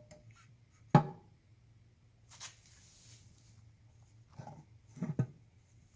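Oil pan being fitted to an engine block: a sharp knock about a second in, a brief rustle, then a few lighter knocks, over a faint steady hum.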